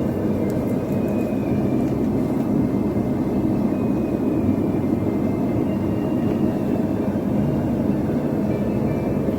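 Steady roar of a blacksmith's forge, an even rushing noise with no strikes or breaks.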